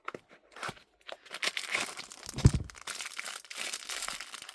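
Packaging crinkling and rustling as a fuel pressure gauge kit and its parts are handled, with one dull knock about halfway through.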